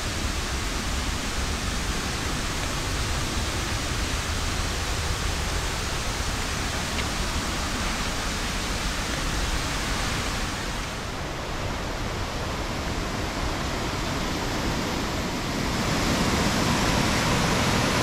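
Waterfall and river cascade: a steady rush of falling water. It dips a little about eleven seconds in and grows louder near the end.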